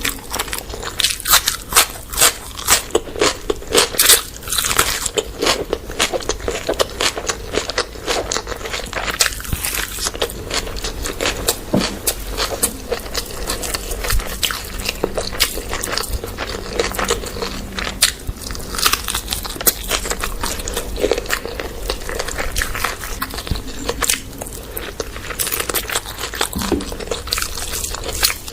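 Close-up eating sounds: a person chewing and biting food continuously, with many sharp clicks and crunches.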